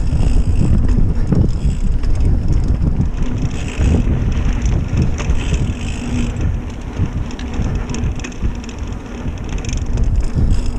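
Mountain bike ridden fast along a dirt singletrack: wind buffeting the action-camera microphone over tyre noise, with scattered knocks and rattles as the bike hits bumps.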